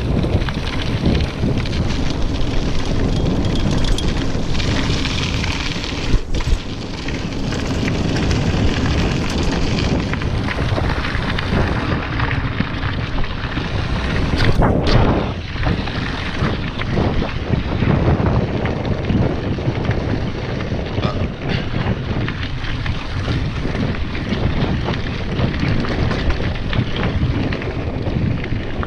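Heavy wind noise buffeting the microphone, a loud continuous rough rumble with a few brief knocks and dips.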